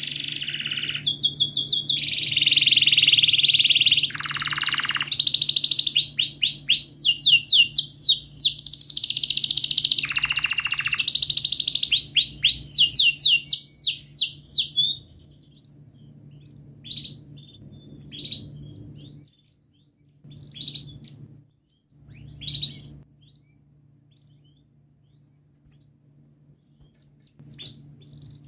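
Domestic canary singing a long, loud song of rapid trills and rolling runs of repeated notes for about fifteen seconds, then only a few scattered short chirps. A faint steady low hum runs underneath.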